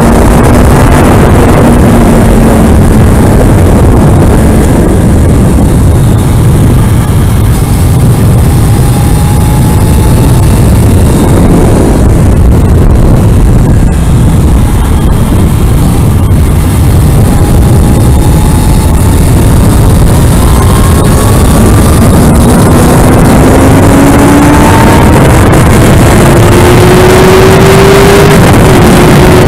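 Kawasaki Ninja ZX-6R's inline-four engine running at track speed, loud and buried under heavy wind noise on a helmet-mounted microphone. The engine note climbs steadily over the last several seconds as the bike accelerates.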